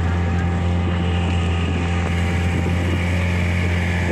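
Small passenger boat's engine running steadily under way, a constant low drone.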